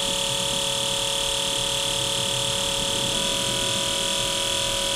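Fuel injector test bench running a flow test: four injectors pulsing rapidly at a simulated 5,500 rpm, spraying into graduated cylinders, with a steady electric buzzing hum. The tone shifts slightly about three seconds in.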